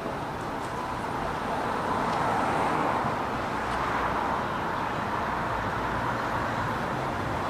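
A car driving past on a street, its road noise swelling and then easing off, over a steady traffic hum.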